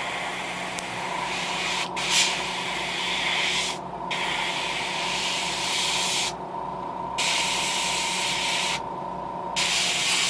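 Gravity-feed airbrush spraying thin coats of paint onto a crankbait lure: about five hissing bursts of around two seconds each, cut by short pauses as the trigger is let off. A steady low hum runs underneath.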